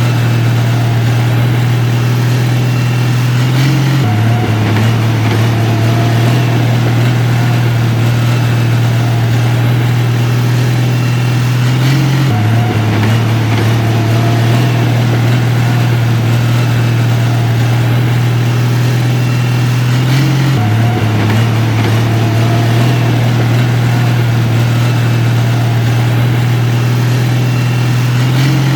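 Heavy construction machine engine running steadily with a low drone, shifting slightly in pitch about every eight seconds.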